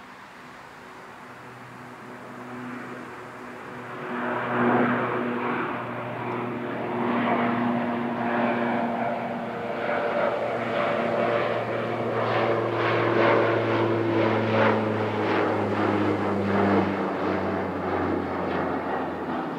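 Twin-engine turboprop airliner, a De Havilland Canada Dash 8, landing. Its steady propeller and engine drone of several tones grows louder from about four seconds in and is loudest past the middle. Near the end the pitch drops a little as it rolls out on the runway.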